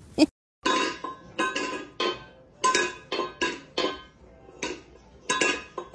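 Stainless steel water bowl clanking on a hard floor as a cat bats at it with its paw, about two or three clanks a second, each with a short metallic ring.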